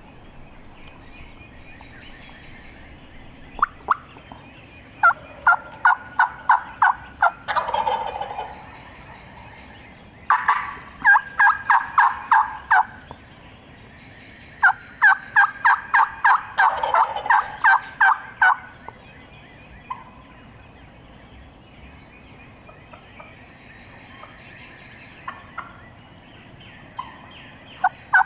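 Wild turkeys calling from the roost: a gobbler gobbles twice, about 8 and 17 seconds in, among several loud runs of eight to twelve quick, evenly spaced yelps, about three or four a second.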